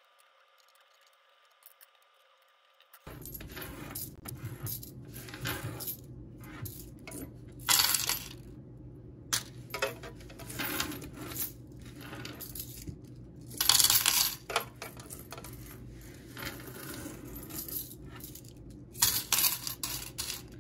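Near silence for about three seconds, then loose US coins clinking and jingling as they are slid across a mat and dropped by hand into the compartments of a sorting tray, with several louder clusters of clinks.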